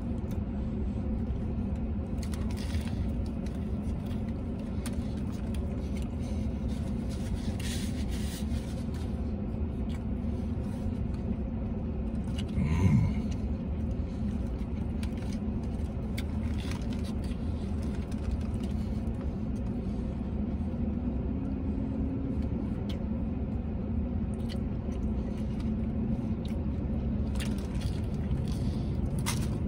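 Steady low vehicle rumble heard from inside a car cab, with a brief louder swell about halfway through. Faint soft chewing and wrapper rustles come now and then as a man eats a sandwich.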